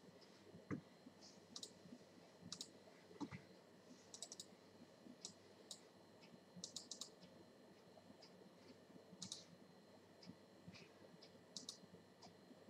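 Faint clicks of a computer mouse, scattered irregularly, several coming in quick pairs or small clusters, over a quiet steady hiss.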